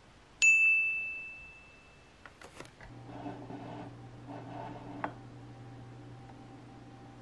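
A single bright, bell-like ding about half a second in that rings out and fades over about a second and a half. A few faint clicks follow, then a low steady hum.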